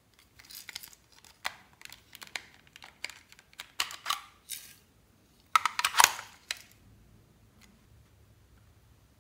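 Hard plastic clicks and rattles from a pink plastic pony-shaped toy container being handled, opened and tipped out over slime. It comes as a run of short bursts, loudest about six seconds in.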